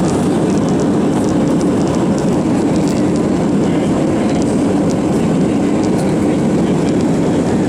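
Steady loud cabin rumble inside an Airbus A320-231 airliner, engines and airframe noise, with faint light rattles of cabin fittings.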